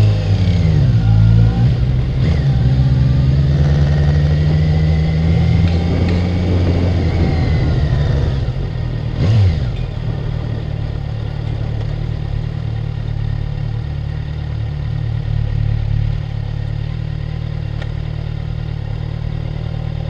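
Kawasaki Ninja 1000's inline-four engine pulling away with revs rising and falling for the first few seconds, dropping off sharply about nine seconds in, then idling steadily.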